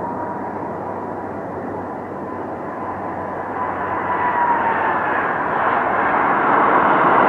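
Twin-engine Airbus A330 jet airliner landing. A high engine whine slides a little lower over a steady jet roar, and the roar grows louder after touchdown.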